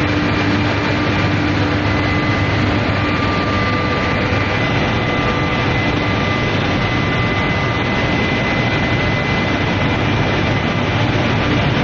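Induction heating furnace running: a loud, steady industrial noise with a thin, high, steady whine held through it.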